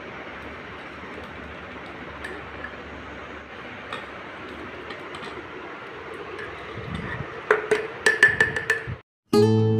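Metal spoon clinking and scraping against a steel bowl and a glass jar as thick mango pickle is spooned in, over a steady hiss; near the end comes a quick run of sharp, ringing taps. After a brief drop to silence, acoustic guitar music starts.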